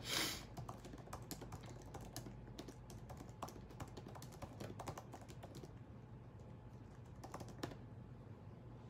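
Light, quick typing taps, a rapid run of small clicks for the first five seconds or so, then only a few scattered taps. A brief breath-like puff of noise comes right at the start.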